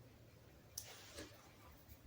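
Near silence, with two faint short rustles a little under a second and just over a second in, from electrical tape being handled and wrapped.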